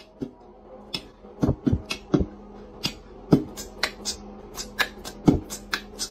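Irregular sharp clicks and taps, about twenty of them, with a few duller knocks among them, over a faint steady hum.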